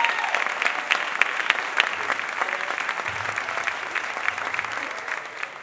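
Audience applauding, the clapping slowly dying down.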